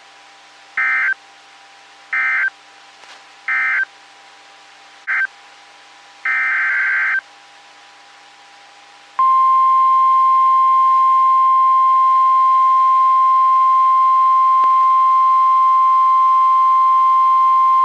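NOAA Weather Radio alert signal: five short digital data bursts of the SAME header, the last about a second long. About nine seconds in, the steady 1050 Hz warning alarm tone starts and holds, the signal that a warning message follows.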